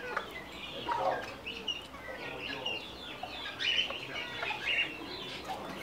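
Chickens clucking quietly, with short high calls scattered throughout.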